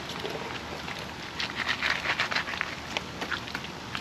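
Wet handling of a gutted flathead catfish as the entrails are pulled out of its belly: a run of small clicks and squelches, busiest in the second half.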